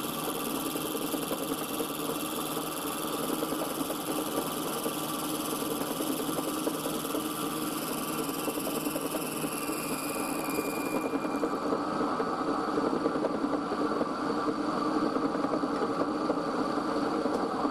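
Milling machine running, its end mill side-milling a brass block clamped in a vise: a steady motor hum with cutting noise. A high whine in the sound drops away about eleven seconds in.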